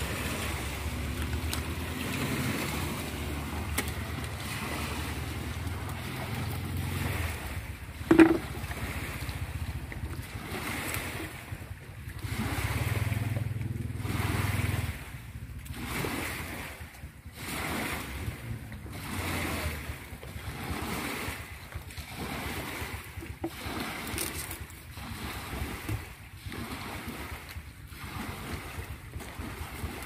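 Wind buffeting the microphone over harbour wash, with a boat engine droning low for the first several seconds and again for a few seconds midway. A single sharp knock about eight seconds in.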